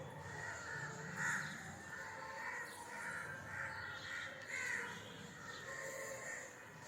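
Crows cawing repeatedly, several short calls at uneven intervals.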